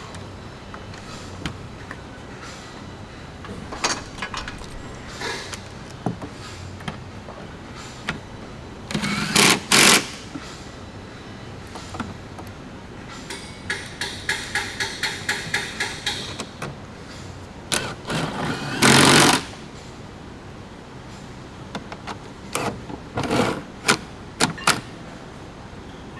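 Cordless power driver running the mounting fasteners in, in short bursts: twice about nine seconds in and once for about a second near nineteen seconds. Between them comes a quick run of rapid clicking, and there are scattered knocks and clicks of parts and tools.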